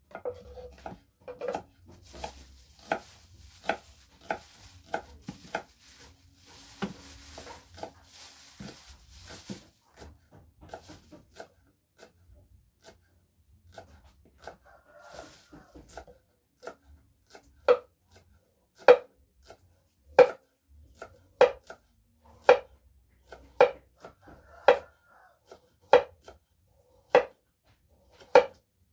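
A knife chopping food on a wooden cutting board. Lighter, quicker cuts give way about halfway through to heavy, evenly spaced strokes about one a second.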